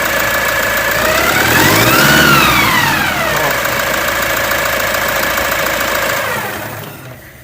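Running engine with a high whine that rises in pitch as the engine is revved about two seconds in and falls back as it settles, then holds steady: the abnormal engine noise. The sound fades out near the end.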